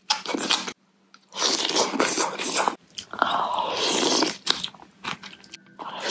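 A crunchy bite at the start, then long slurps of naengmyeon noodles with chewing in between.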